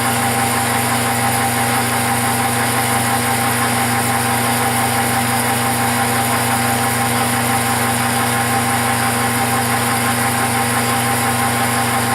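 Metal lathe running steadily, its motor and gear train giving a constant hum with a fixed whine.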